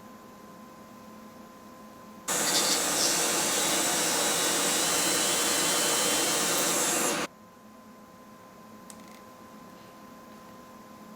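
A dental laboratory machine runs in one five-second burst of steady rushing noise, loud and bright in the high end, switching on about two seconds in and cutting off sharply.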